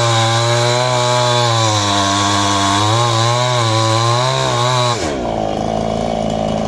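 Small two-stroke chainsaw running at full throttle through wood, its pitch wavering and dipping slightly under the cut. About five seconds in the throttle is released and the pitch falls to a lower, steady running.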